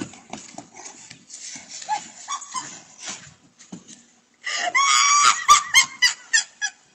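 Faint scuffling and tugging on a wooden deck as a dog pulls at a woman's scarf, then, about four and a half seconds in, a woman laughing loudly in bursts.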